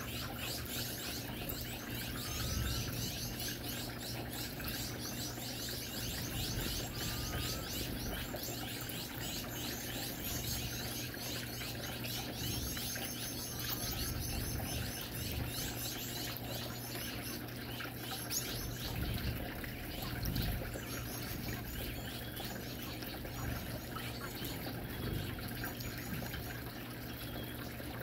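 A flock of Gouldian finches chirping and twittering continuously with many short, high calls, over the steady trickle of a rock water fountain and a low steady hum.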